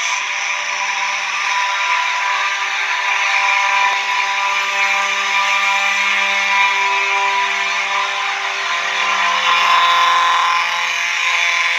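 Simplex fire alarm horns, a 4901-9805 among them, sounding together in a continuous, unbroken blare of many steady tones.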